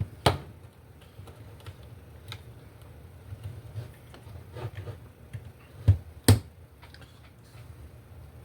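Small clicks and taps of multimeter test leads being handled and swapped for clip-on leads, with three sharper clicks: one just after the start and two close together about six seconds in.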